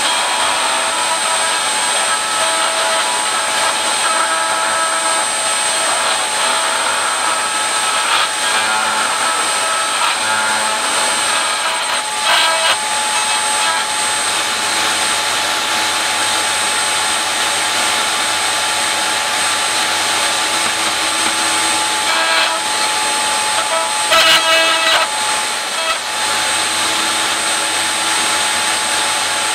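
Table-mounted router running steadily with a high whine while the end of a walking cane is fed in and out against its cutter to shave it down. Louder cutting noise comes twice, about twelve seconds in and again about twenty-four seconds in.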